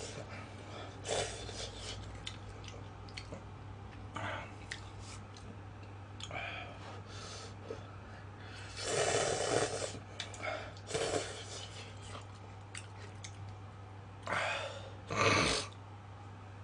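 A man slurping and chewing instant cup ramen noodles in several separate slurps, the longest about nine seconds in and two more near the end. A steady low hum runs underneath.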